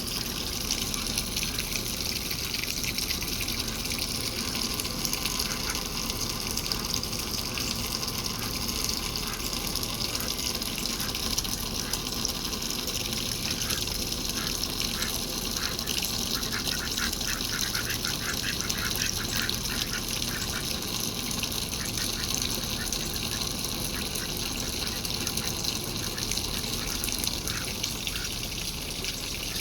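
Water running and splashing steadily while ducks quack in runs of short calls, busiest around the middle.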